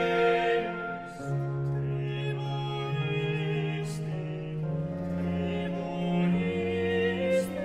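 Slow baroque church music from a period ensemble: bowed strings hold long chords over a bass line that changes note every second or two.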